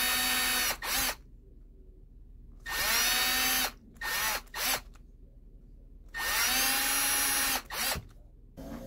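Electric drill run in three bursts, each starting with a rising whine as the motor spins up and then holding steady, each followed by one or two short blips of the trigger. The drill is opening up small holes in a guitar headstock with a slightly larger bit.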